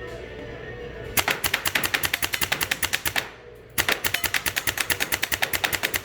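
HPA airsoft gun with a Mancraft engine firing two full-auto bursts of about two seconds each, a rapid, even string of sharp shots, with a short pause between them.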